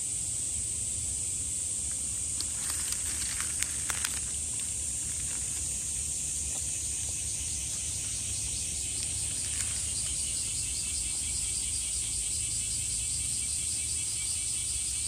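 Outdoor insects chirping: a steady high drone, joined about ten seconds in by a fast pulsing trill. A few faint sharp clicks sound about three to four seconds in.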